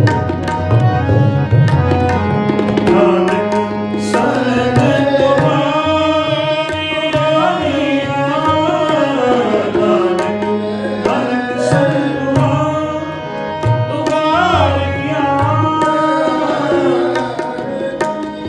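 Shabad kirtan, a Sikh devotional hymn: tabla strokes keep a steady rhythm under a held drone, and a male voice sings a melody that rises and falls from about four seconds in.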